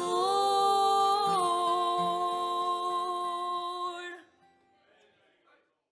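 The final held sung note of a country gospel song over guitar accompaniment, fading out just over four seconds in.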